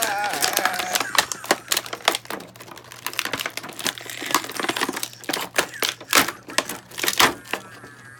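Plastic action-figure packaging being handled and pulled apart: rapid, irregular crinkling and clicking.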